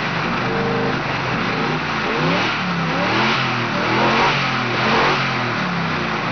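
Chevrolet Camaro Z28's V8 engine running and being revved repeatedly, its pitch climbing and falling back several times.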